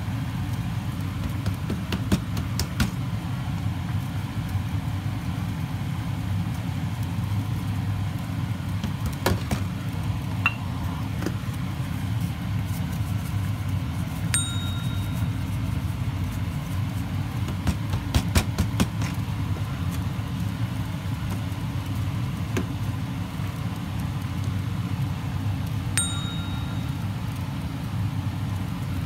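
A steady low hum, with scattered clicks and taps from seasoning shakers being picked up, shaken and set down on the counter. Twice a short, identical ring sounds, about twelve seconds apart.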